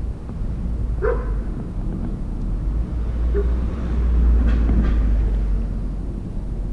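Steady low rumble with a dog's short yelp about a second in, and fainter short sounds later.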